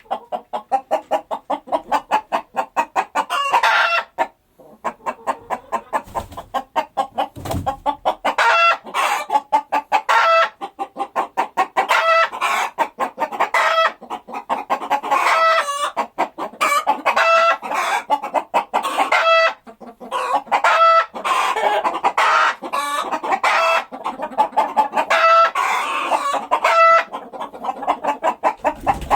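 A flock of chickens clucking continuously, many quick pitched clucks overlapping, with a short lull about four seconds in.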